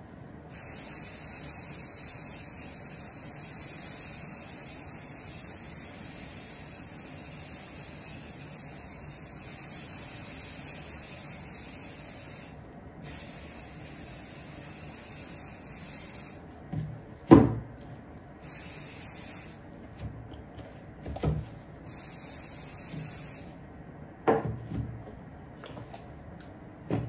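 Aerosol spray can hissing onto a suede shoe: one long continuous burst of about twelve seconds, a second of about three seconds, then two short bursts. Several sharp knocks in the second half, the loudest about two-thirds of the way through.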